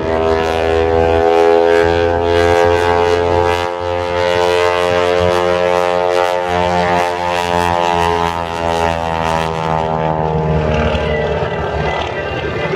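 Propeller airplane's engine running loudly as the plane flies past, its pitch rising slightly and then falling away as it goes by.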